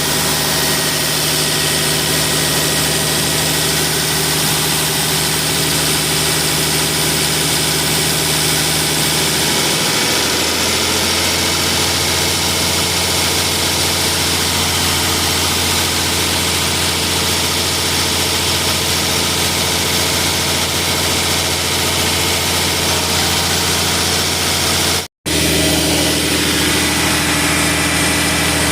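Diesel engine of a portable Sullair 375 cfm, 8 bar air compressor running steadily, its pitch shifting about ten seconds in. The sound drops out for an instant near the end.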